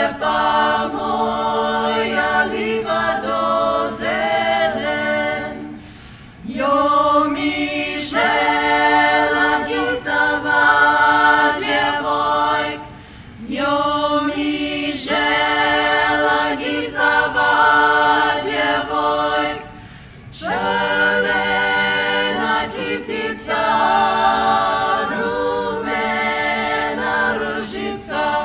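Background music: a women's vocal ensemble singing a Croatian folk song a cappella, several voices in harmony, in phrases with short pauses between them.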